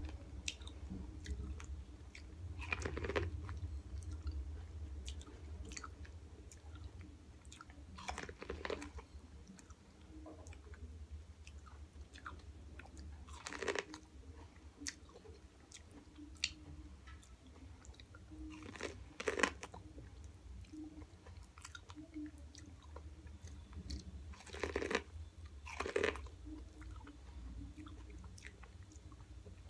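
Biting into and chewing corn on the cob dressed with mayonnaise, hot sauce and cheese, close to the microphone. About six louder bites come every few seconds, with small chewing clicks between them.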